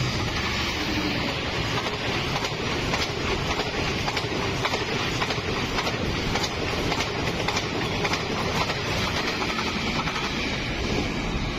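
Talgo passenger train passing close by at speed: a steady rush with quick clicks of the wheels over the rail joints. The diesel locomotive at the rear of the train passes near the end.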